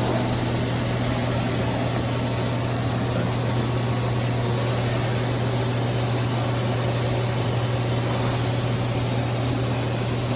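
Ganesh Cyclone 32CS CNC Swiss-type lathe running with its sub spindle being jogged in and out: a steady low hum under an even mechanical whir, with no distinct starts or stops.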